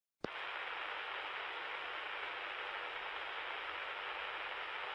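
Steady hiss of static, as from a two-way radio, starting with a click a moment in.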